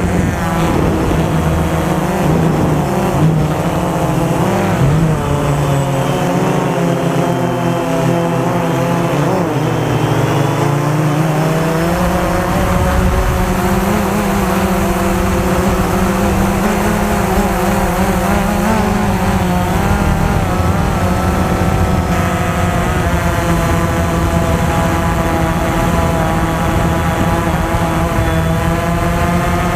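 DJI Phantom 2 quadcopter's electric motors and propellers whining, their pitch drifting up and down as the motors change speed to hold the drone against strong wind, with wind noise rushing over the microphone.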